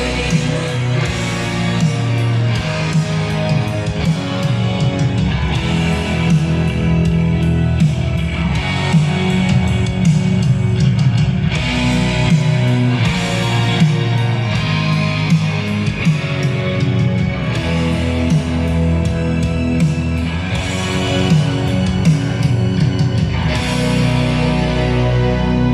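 Rock music with distorted electric guitar, bass and steady drum hits, played back loud through a Genius 5.1 home theatre speaker system with subwoofer.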